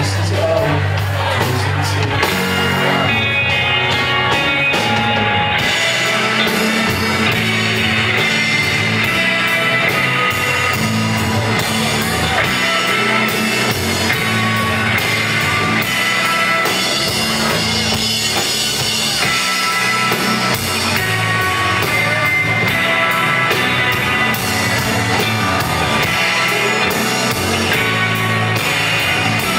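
Live rock band playing: electric guitars, bass guitar and drum kit. The cymbals come in hard about five seconds in and keep a steady driving beat.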